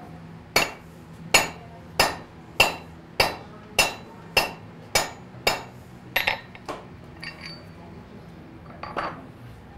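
Blacksmith's hand hammer heading a nail in a nail header on an anvil: about nine steady, sharp metal-on-metal blows, a little over half a second apart, then a few lighter clinks.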